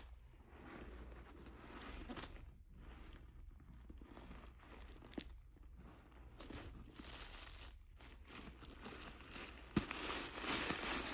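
Handbag packaging being crinkled and torn open by hand, in irregular rustling bursts, with a sharp click about ten seconds in and the loudest crinkling near the end.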